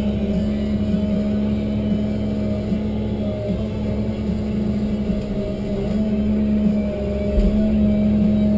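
Tigercat 1075B forwarder's diesel engine and loader-crane hydraulics running steadily, heard from inside the cab while the crane works, a constant drone whose pitch shifts slightly.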